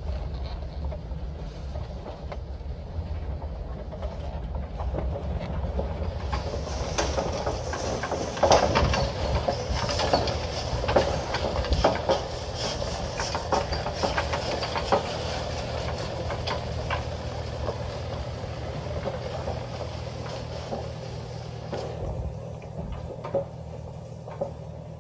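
Vehicle creeping along a rough dirt road, heard from inside the cab: a steady low engine hum under tyre noise, with a run of clattering rattles and knocks from about 7 to 17 seconds in.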